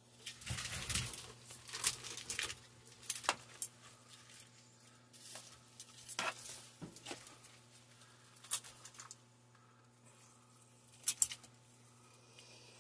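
Savannah monitors biting down on and crushing snails in their shells: irregular sharp crunches and clicks with rustling on the bark substrate, the loudest crack near the end.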